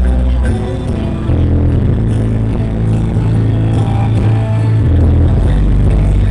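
Loud music with heavy, sustained bass notes that change every second or so.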